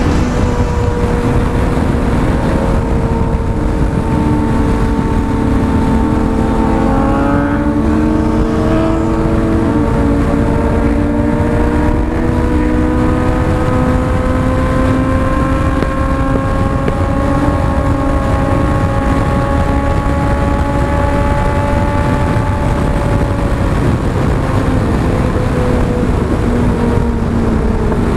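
Motorcycle engine at motorway cruising speed, its note climbing slowly as the bike speeds up and easing back down near the end, under heavy wind rumble on the helmet-mounted microphone.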